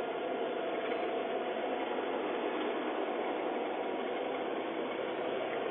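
Steady hiss of background noise, with a faint steady tone that fades out about two seconds in.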